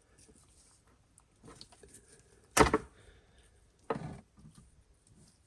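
Knocks and rustles of hands working at a car's interior trim and wiring loom: a sharp knock about halfway through, a softer one about a second later, and small handling sounds in between.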